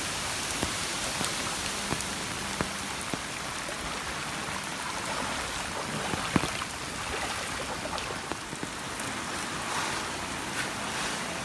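Steady heavy monsoon rain falling, with scattered sharp ticks of nearby drops, mixed with floodwater running over a road.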